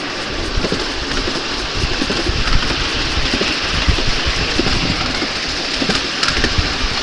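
Miniature ride-on railway train running along its track, heard from aboard: a steady rumble of wheels on the rails with frequent irregular clicks and knocks.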